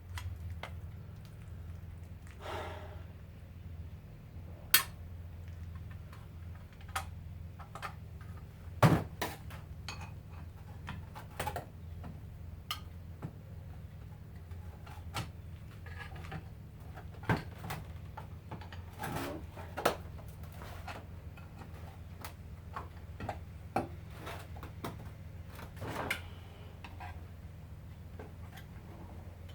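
Scattered metal clinks, taps and short scrapes of hand tools working on a garbage disposal's metal parts, over a steady low hum.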